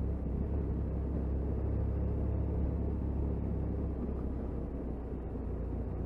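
Motorcycle engine and road noise while riding at town speed: a steady low rumble that eases slightly about two-thirds of the way through.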